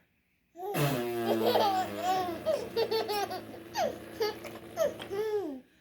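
A six-month-old baby laughing in a run of short giggles, starting about half a second in. Under the laughter is a man's low, steady vocal noise made to amuse him.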